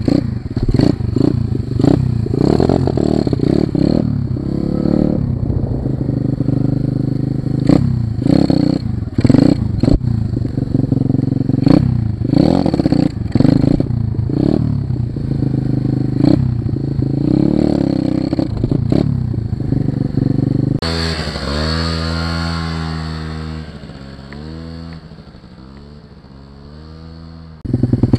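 Orion AGB29 125cc pitbike engine running with the choke still on, revving up and down under the rider with clattering from the bike. About 21 seconds in, the throttle closes and the engine note falls and fades. It picks up loud again just before the end.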